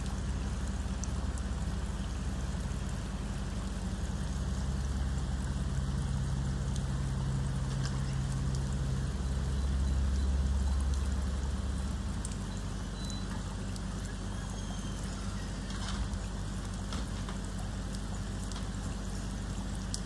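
Steady rain falling on a wet road, with the low hum of a distant Kenworth truck's Caterpillar diesel engine running beneath it. The engine grows louder through the middle and drops back about twelve seconds in.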